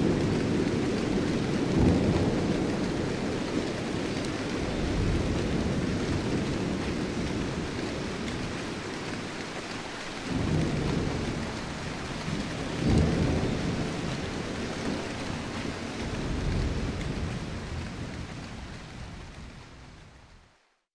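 Thunderstorm: steady rain with several low rolls of thunder swelling and dying away, the whole fading out near the end.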